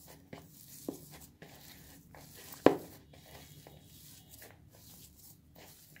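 Hands squeezing and kneading mashed boiled potato with chopped onion and spices in a pan: soft, irregular squelching and rubbing, with one sharp knock against the pan about two and a half seconds in.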